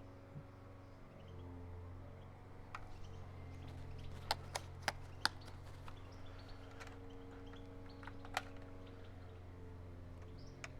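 Faint clicks and light knocks from an airsoft rifle being handled, with a cluster of four sharp clicks in the middle, over a low steady hum.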